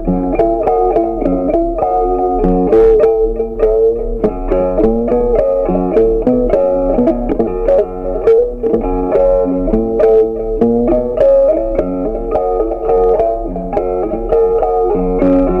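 Background music: a guitar playing a melody of short, quick plucked notes.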